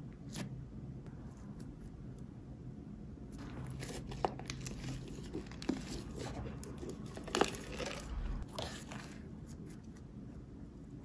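Fluffy slime being squeezed and pulled out of a clear plastic cup by hand: irregular crackling, popping and plastic crinkling that start a few seconds in, with a few sharper pops.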